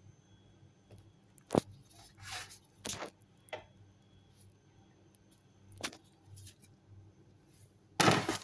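Handling noises: a few separate sharp clicks and short rustles, with a louder brief rustle near the end.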